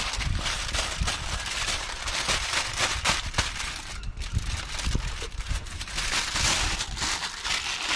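Wood cooking fire crackling and popping in a dense run of sharp snaps, over a low rumble.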